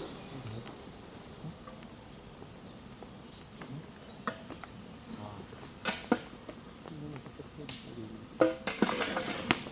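Steady high-pitched insect chirring, with a few sharp clicks and knocks in the second half.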